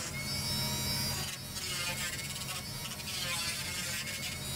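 Dremel 4000 rotary tool running on its flex shaft, a sanding drum grinding at the edges of the cutouts in a PVC pipe: a steady high-speed motor buzz with a thin whine over it. The grit of the sound shifts a little as the drum is pressed into and drawn along the plastic.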